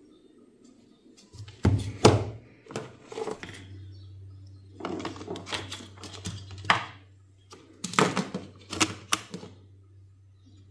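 Clicks and knocks of hard parts being handled, in four short bunches, with a steady low hum that comes on about a second and a half in.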